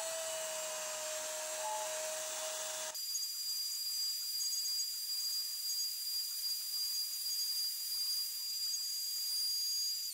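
NymoLabs 710 W trim-router spindle on a CNC router running at speed with a steady whine while a V-bit engraves lettering into wood. About three seconds in the sound changes abruptly to a thinner, higher whine.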